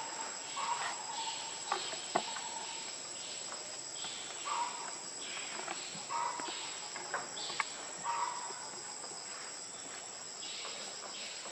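Steady high-pitched drone of forest insects, with a short call repeating every second or two and a few sharp clicks.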